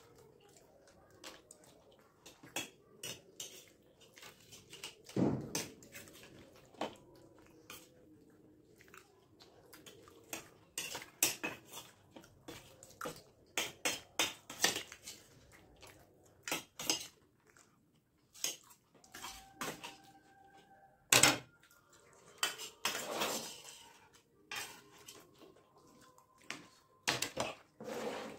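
Metal spoons clinking and scraping against steel plates as two people eat, in irregular quick strikes; a few strikes ring briefly.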